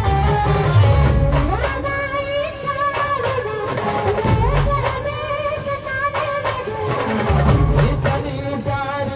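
Indian brass band music: a melody with sliding pitches over drums, the heavy drumming strongest at the start and again from about seven seconds in.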